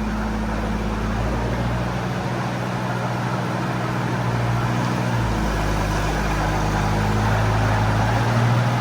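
A restored military vehicle's engine running as the vehicle moves, with a steady low hum whose pitch changes a couple of times. It grows gradually louder.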